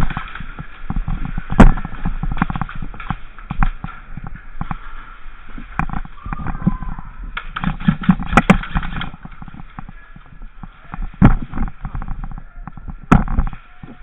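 Airsoft guns firing in scattered single shots and short bursts, mixed with footsteps and knocks of gear. The sharpest pops come about a second and a half in, in a tight cluster around the middle, and twice near the end.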